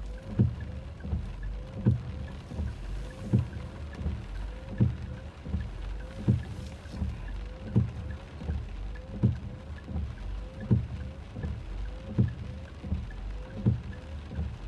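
Car windshield wipers sweeping across a rain-wet windshield, heard from inside the cabin. There is a thump at the end of a stroke about every one and a half seconds, a lighter one between, and a short squeak of the blade just before each thump, over a low steady rumble.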